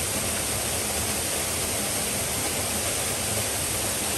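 Steady rush of falling water from a waterfall cascade, an even hiss with no rise or fall.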